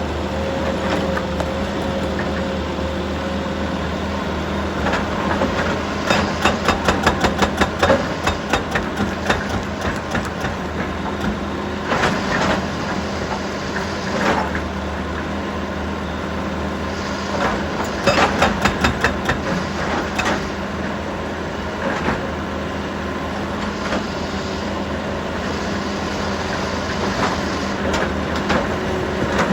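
Heavy construction machinery running steadily with an even engine hum. Bursts of rapid knocking and clattering come loudest about six to eight seconds in and again around eighteen to twenty seconds, with shorter bursts between.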